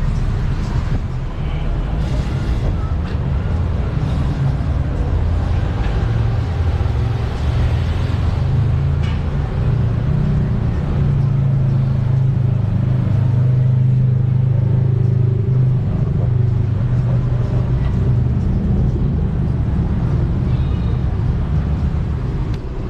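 Tow truck engine running steadily with a low drone, growing a little stronger for a few seconds in the middle.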